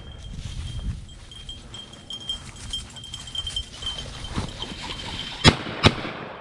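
A hunting dog's collar bell jingling steadily as the German shorthaired pointer runs through the grass. About five and a half seconds in come two shotgun shots in quick succession, the loudest sounds by far.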